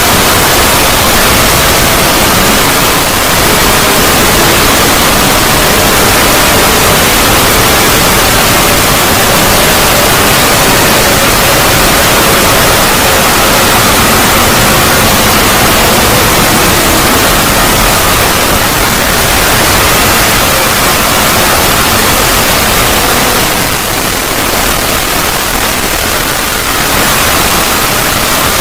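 Loud, steady static-like noise from a 'void' logo sound effect, with faint wavering tones running through it. It dips slightly in loudness near the end.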